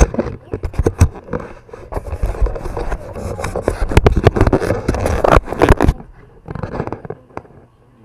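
Close handling noise on the camera: fingers rubbing, scraping and knocking over the microphone, a dense run of scratchy noise and clicks that drops off about six seconds in.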